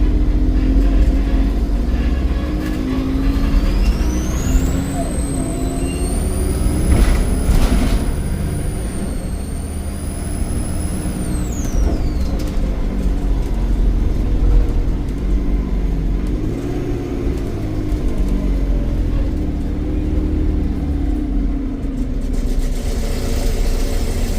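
Volvo D7E 7.1-litre diesel engine of a Wrightbus Eclipse Volvo B7RLE single-deck bus running under a steady low rumble. Its turbocharger whistle rises to a high pitch about three seconds in, holds for several seconds, then falls away and stops about twelve seconds in.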